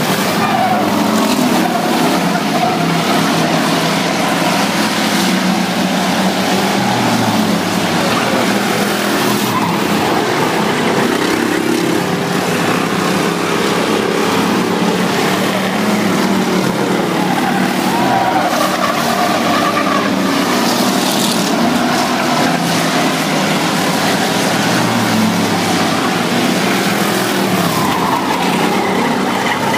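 Several dirt-track stock cars racing around a clay oval, their engines a loud, steady drone with the pitch of passing cars rising and falling now and then.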